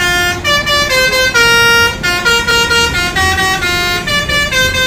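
An instrumental melody of short, steady, horn-like notes stepping up and down over a low beat.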